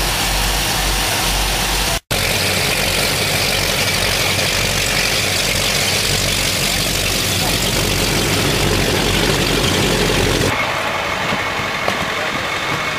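Twin Mercury Racing 525 engines of a performance catamaran running with strong low steady tones. After a split-second dropout about two seconds in, the engines are heard underway beneath rushing water and wind noise. Near the end the sound cuts to a quieter, thinner background without the engine's low tones.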